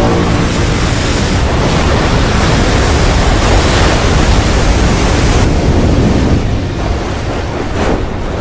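Movie sound effects of a giant tsunami wave: a loud, steady rush of surging water and wind. It swells for about five seconds, then eases a little, with a brief sharper whoosh near the end.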